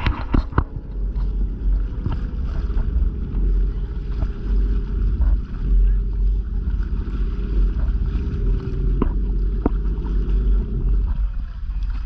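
Small boat under way on choppy open water: a steady low rumble of wind on the microphone and water moving against the hull, with a few sharp knocks near the start and again a little before the end.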